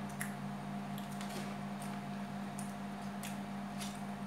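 Steady low electrical hum with a few scattered light clicks, about seven in all, spaced irregularly.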